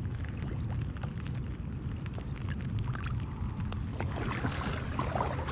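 Water splashing and trickling around an inflatable kayak as a bass is released and the paddle is handled, with a little more splashing about four seconds in, over a steady low rumble.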